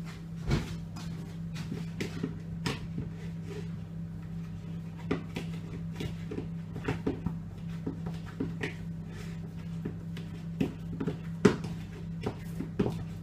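A banana being mashed in a mixing bowl: irregular clicks and knocks of the utensil against the bowl, one sharper knock about eleven seconds in. A steady low hum runs underneath.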